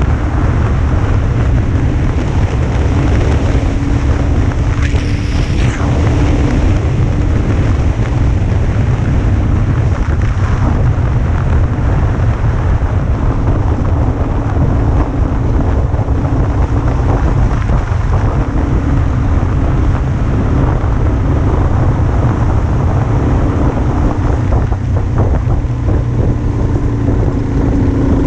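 Heavy wind buffeting on the microphone of a moving motorcycle, with the bike's engine running steadily underneath.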